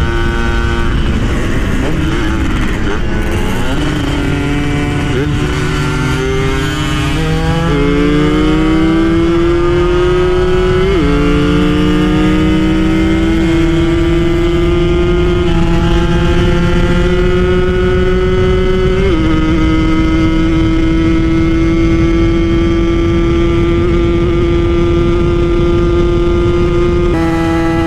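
Yamaha F1ZR's two-stroke engine, bored to 120cc, at full throttle on a top-speed run: the engine note climbs, drops back at each upshift about 11, 13 and 19 seconds in, then holds a steady high note. A low rushing noise runs underneath.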